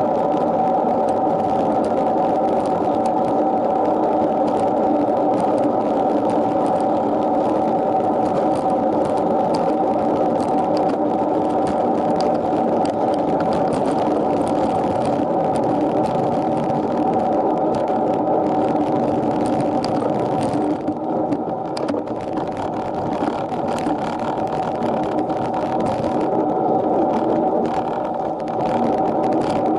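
Steady whirring ride noise from a bicycle climbing at speed, picked up by a bike-mounted action camera, with light ticking over it and a brief dip in level about two-thirds of the way through.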